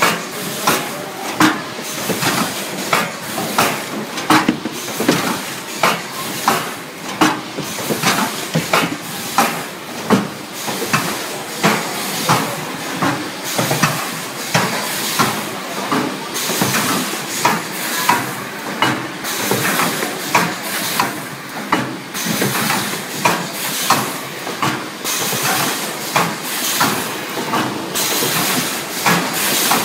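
Biscuit ice cream filling and sealing machine running, a steady mechanical clatter with a hiss and sharp knocks repeating about every two-thirds of a second.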